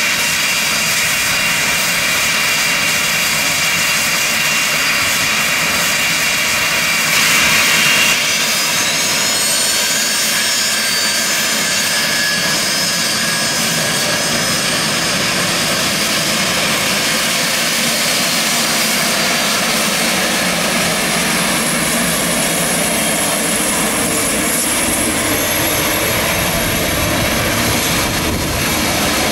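A Cessna Citation XLS's twin Pratt & Whitney Canada PW545B turbofans run with a steady loud rush and high whine. About eight seconds in, the whine rises in pitch as the engines spool up.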